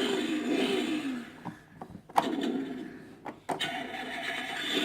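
A toy car's electronic engine-start and revving sound effect played through its small speaker, with the pitch falling away, repeating in short stretches. Several sharp clicks of the toy's key, buttons or levers being worked sound among it.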